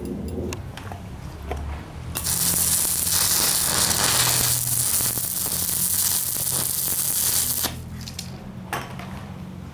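Electric welding arc from a small home-built inverter welder. It strikes about two seconds in, crackles and hisses steadily for about five and a half seconds, then breaks off. A few light clicks come before and after it, over a steady low hum.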